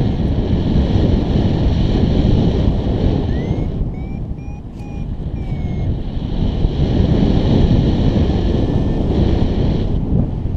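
Steady low wind rumble from the airflow over the camera's microphone in paraglider flight, dipping briefly about four seconds in. A few faint high chirping tones come and go in the middle.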